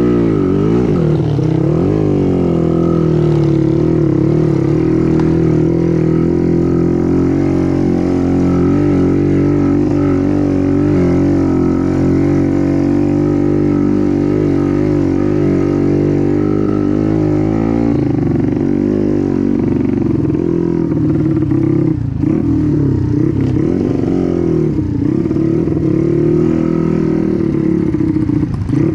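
Motorcycle engine running continuously while riding, its revs rising and falling with the throttle near the start and again in the last third, holding fairly steady in between.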